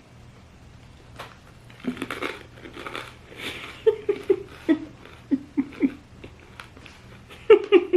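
A woman crunching and chewing crispy fried potato chips, a cluster of crackly bites about two seconds in. From about four seconds in come runs of short, falling laughs, again near the end.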